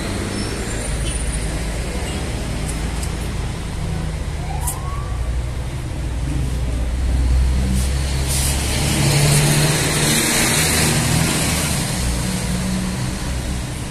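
Road traffic with the steady low rumble of heavy vehicle engines running. A rushing hiss rises for a couple of seconds about two-thirds of the way through.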